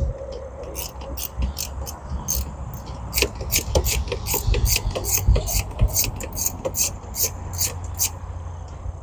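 Socket ratchet wrench clicking in a quick run of short ticks, about two to three a second, while working loose a tightly torqued bolt on a MerCruiser sterndrive's gimbal housing, with scraping and knocks of the tool against the metal.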